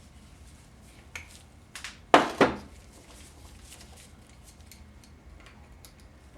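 Metal parts clinking as a 4L60E transmission's solenoid and wiring harness are worked loose by hand: a few light clicks, then two sharp metallic clacks about two seconds in, followed by faint ticking.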